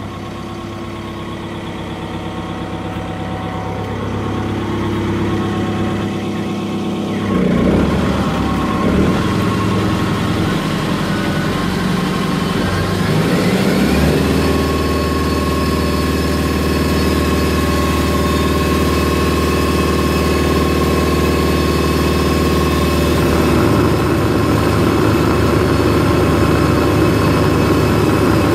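Volvo MW500 cold planer's diesel engine running, its note shifting about a quarter of the way in and rising near the middle before it settles into a steady, higher drone while the milling drum turns.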